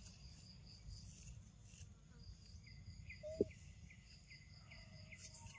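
Insects chirping outdoors: a faint high pulsing trill and a row of short repeated chirps, a few per second, over a low background rumble. A single short, sharp squeak about three and a half seconds in is the loudest sound.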